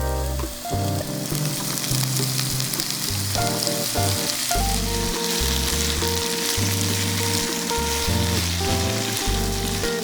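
Food sizzling in hot vegetable oil in a frying pan, the hiss coming up about a second in and continuing steadily, over background music.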